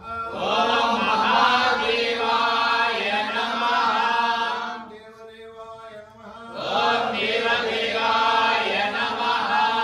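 A group of men chanting a Hindu devotional hymn together in two long, loud phrases, with a brief quieter dip about halfway.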